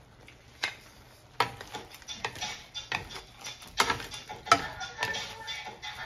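Wooden spatula stirring shrimp and onions in a wok, knocking and scraping against the pan in irregular strokes that start about half a second in.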